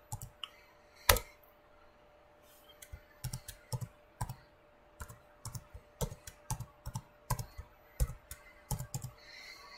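Computer keyboard being typed on: a single louder keystroke about a second in, then after a short pause a quick run of separate key presses.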